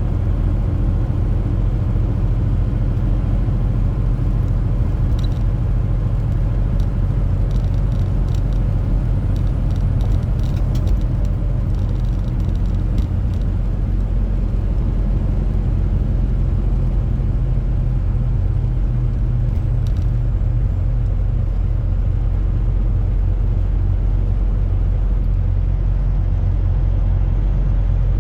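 Steady low rumble of a semi-truck's diesel engine, with a few faint ticks scattered through the first half.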